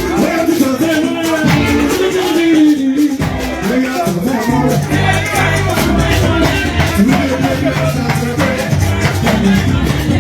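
Church praise music: singing over shakers and a steady percussion beat, with a bass line that comes forward about halfway through.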